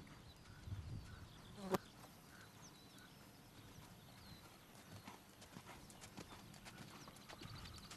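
Horse's hooves thudding softly on arena sand as a horse canters, with a single sharp click about two seconds in.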